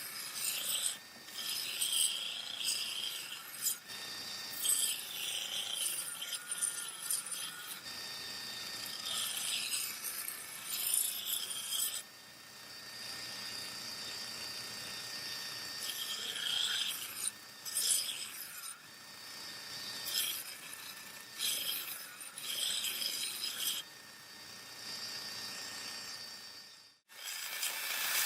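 Repeated rough hand-scraping or abrading strokes on the rusted steel of a katana blade as the rust is worked off. There is a brief dropout near the end.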